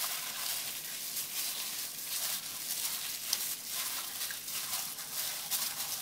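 Hand in a plastic glove squishing and rubbing pieces of silver carp in an oily fish-sauce marinade: irregular wet squelching mixed with plastic crinkling.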